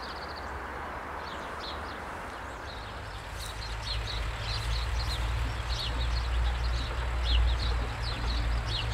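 Birds chirping outdoors, many short high calls, over a low rumble that grows louder about four seconds in.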